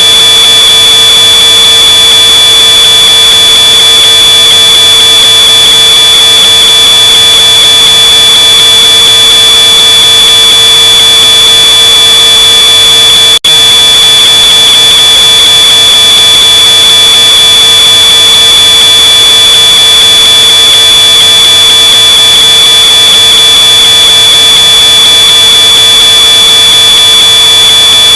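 Smoke alarm sounding one continuous shrill tone, boosted until it is harshly distorted and at full loudness. It drops out for a split second about halfway through, then carries on unchanged.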